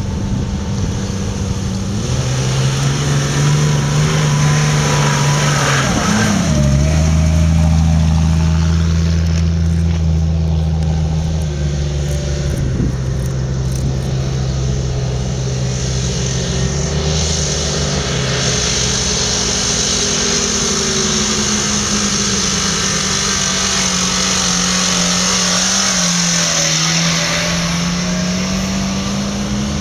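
Engines of off-road 4x4s, a Jeep Grand Cherokee and then a Suzuki Samurai, driving up a rutted mud track. The engines hold steady revs with a few shifts in pitch, then rise and fall slowly in the second half.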